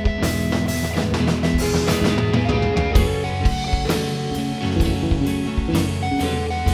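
Rock band playing an instrumental break: guitar over bass and drum kit, with a steady beat of about two drum hits a second.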